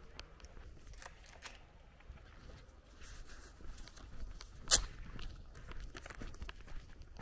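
Footsteps of a person walking on a dirt road, irregular steps and scuffs over light outdoor background noise. A little after the middle there is one much louder sharp knock.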